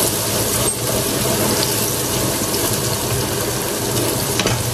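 Sliced onions sizzling steadily in hot oil in a stainless-steel pot while a wooden spoon stirs them; the onions are nearly browned.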